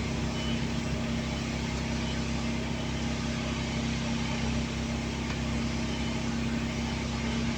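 Newly overhauled Cummins QST30 V12 diesel genset engine idling steadily, breaking in on its idle run before going up to rated speed.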